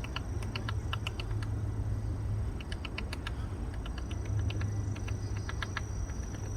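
Woodpecker pecking into wood to bore a hole while foraging for insect larvae: sharp, dry taps in short irregular clusters of a few strikes, with brief pauses between.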